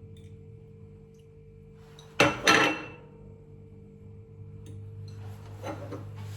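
A spoon and a pot clanking: two sharp metallic clanks with a short ring, a little over two seconds in, then softer handling sounds.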